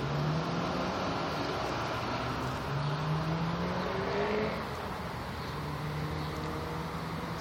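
Car engine running and accelerating, its note climbing for a second or so before it eases off about four and a half seconds in, then a steadier, lower engine note.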